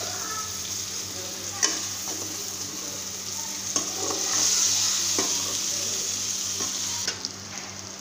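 Stuffed bitter gourds frying in oil and tomato masala in an aluminium kadhai, sizzling steadily, while a metal spatula scrapes and clicks against the pan as they are gently turned. The sizzle drops away near the end.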